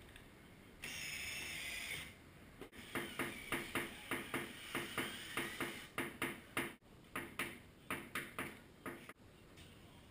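Cordless drill driving screws into a wooden block to hold a motorcycle gas tank in place: the motor runs steadily for about a second, then spins in a run of short bursts, about three a second, as the screws are driven home.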